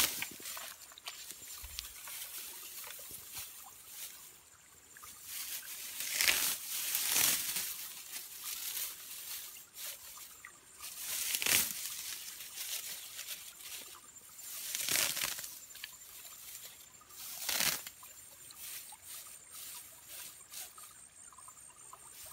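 Splashing and squelching in shallow muddy water as hands work through the mud, with grass and rice stalks rustling. It comes as short swishes every few seconds over a faint steady hiss.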